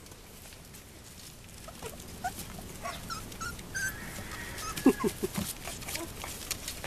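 Four-week-old Corgi x Sheltie puppies whimpering, with small high squeaks scattered through and a few short, falling whines close together about five seconds in. Light scuffling of paws on wooden boards.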